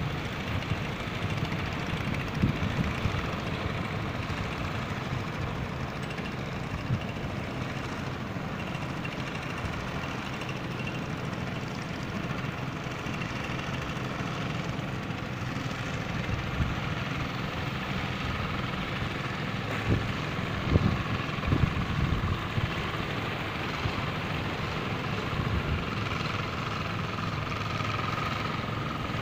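Small motorboat engine droning steadily across open water, with wind buffeting the microphone in gusts about two seconds and about twenty seconds in.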